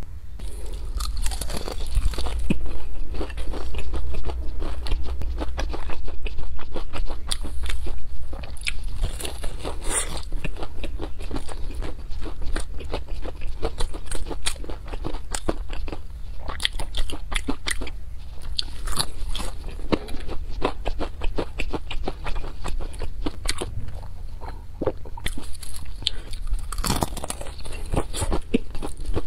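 Close-miked crunching and chewing of crispy battered fried food: many sharp crackling bites through the crunchy coating, with chewing in between.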